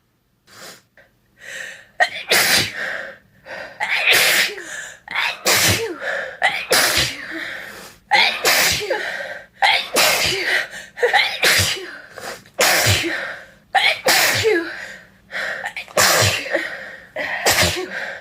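A person sneezing over and over: about a dozen wet sneezes in quick succession, one roughly every second, after a couple of faint breaths at the start.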